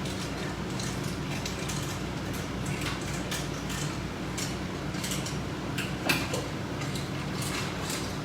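Scattered light clicks and clinks of resistance-band attachment hardware being handled, with one louder knock about six seconds in, over a steady low hum.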